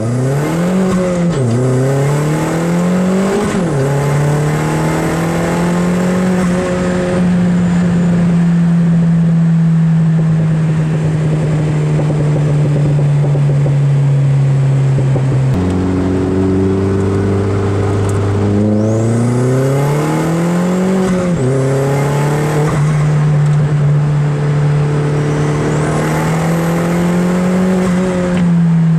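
Modified Opel Speedster Turbo's turbocharged four-cylinder heard from inside the cabin, accelerating hard with the revs climbing and dropping at each upshift. Two quick pulls early on, a long stretch at steady revs, then another hard pull past the middle before settling again.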